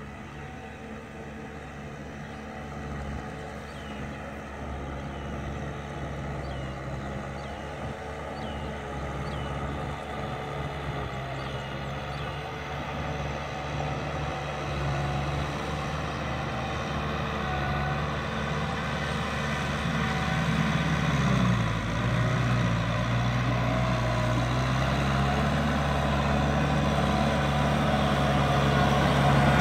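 Kubota M5040 tractor's diesel engine running steadily as the tractor drives through mud, growing steadily louder as it approaches. About two-thirds of the way through, the engine note dips and then climbs back partway.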